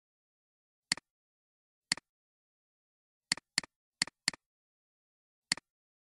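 Computer mouse button clicks: seven short sharp clicks, each a press followed at once by a fainter release tick. Two of them come as quick double-clicks a little past the middle.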